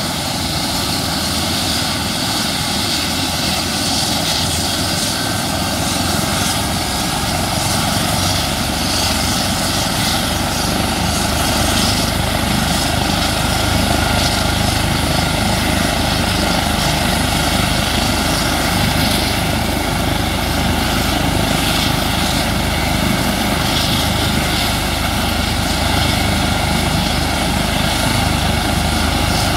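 Eurocopter EC135 helicopter running on the ground with its rotor turning: a steady turbine whine over the beat of the main rotor. The low rotor sound grows a little louder about six seconds in.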